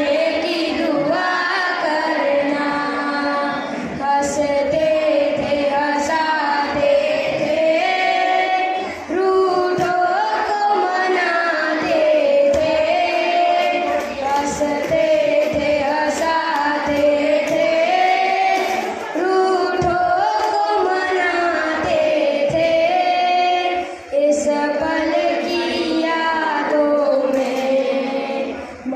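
Two schoolboys singing a slow melodic song together into a handheld microphone, with long held notes and brief pauses for breath.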